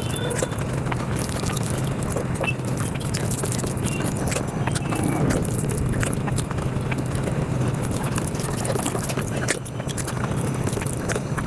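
Mukbang eating sounds played at five times speed: chewing and mouth clicks run together into a fast, dense patter of many short clicks.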